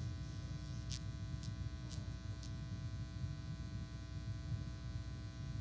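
Steady electrical buzz and hum in the sound system, with four short faint ticks about half a second apart starting about a second in.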